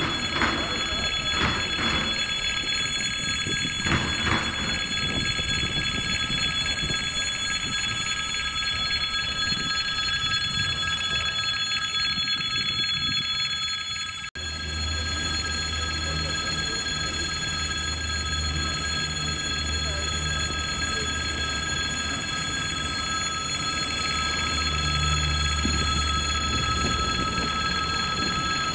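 Railway crossing warning bell ringing continuously, a steady metallic ring. After a cut about halfway through, a low steady rumble joins it.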